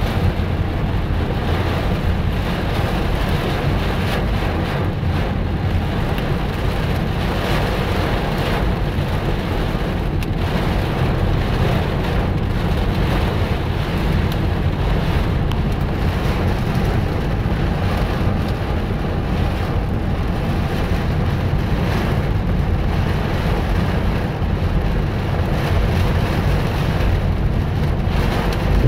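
Heavy rain beating on the roof and windshield of a moving car, heard inside the cabin as a steady rush over a deep road rumble.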